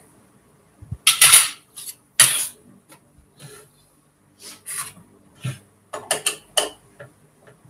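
A screwdriver and small metal parts scraping and clicking against a Singer sewing machine as it is taken apart, in a handful of short bursts with pauses between.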